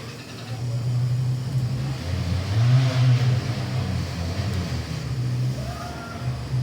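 A motor running with a low hum that starts about half a second in and swells in the middle.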